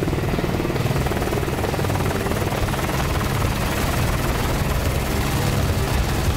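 Steady helicopter rotor and engine noise with a fast, even flutter.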